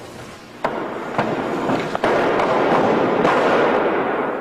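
A wrestler's body slamming flat onto a wrestling ring's canvas mat, taking a bump: three sharp slaps in the first two seconds, then a couple of seconds of loud, dense crackling noise.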